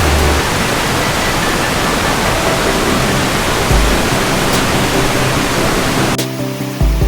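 Waterfall rushing, a loud steady roar of falling water, with faint music underneath. Near the end the water sound cuts off suddenly and only the music carries on.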